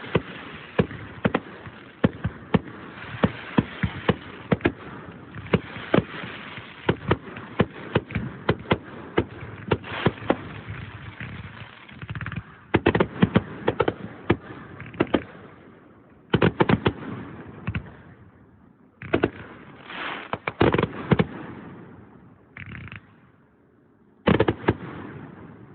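Fireworks going off: a dense run of sharp bangs over continuous crackling, then separate volleys of rapid bangs with quieter gaps between them.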